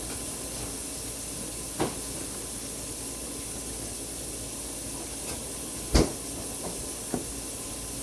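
A few short clicks from handling slime, the loudest about six seconds in, over a steady background hiss.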